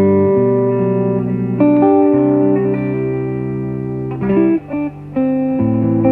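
Background music: held chords that change every second or two, with a brief drop in level about two-thirds of the way through.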